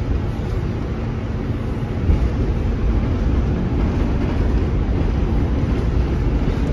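New York City subway car on the A train running, heard from inside the car: a steady low rumble of wheels and motors on the track.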